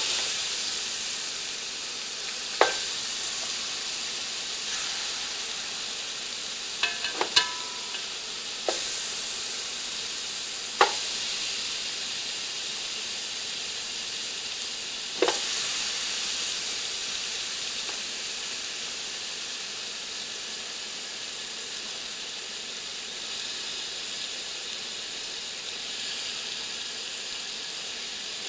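Chicken pieces sizzling in a hot pot of oil and toasted curry powder, a steady hiss that eases slowly, with a few sharp clinks, three of them close together about seven seconds in.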